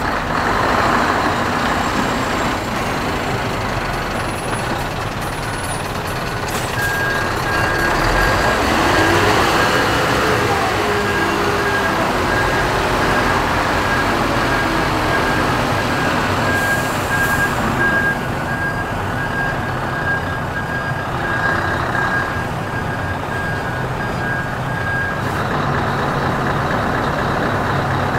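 Scania R620 V8 diesel engine running steadily as the hook-lift truck manoeuvres. A reversing alarm beeps at an even rate from about seven seconds in until a few seconds before the end.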